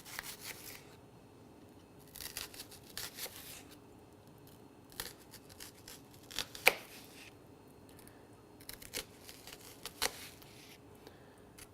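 Kitchen knife cutting an onion on a cutting board: irregular slicing and scraping with a few sharp knocks of the blade on the board.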